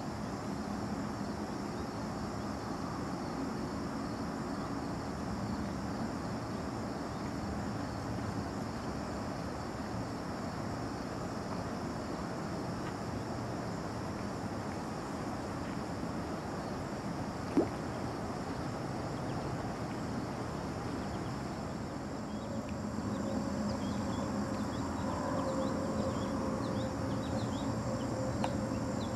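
Steady outdoor background noise, a low even rumble, with one sharp click about two-thirds of the way through. Faint bird chirps come in over the last several seconds.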